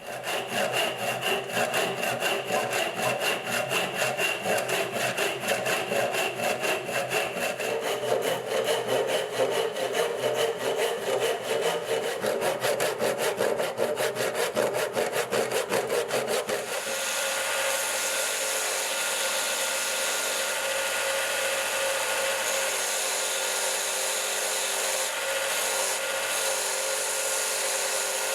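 Fast, even back-and-forth strokes of a hand saw, several a second. About two-thirds of the way through they stop and a small power tool starts running steadily.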